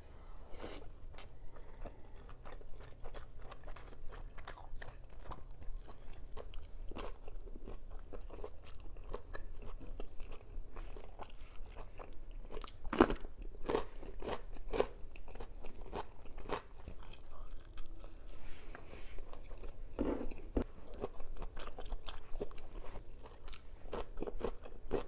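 A person eating close to the microphone: biting into skinless longganisa and other breakfast food and chewing, with many crisp crunches and mouth clicks. One crunch about 13 seconds in is louder than the rest.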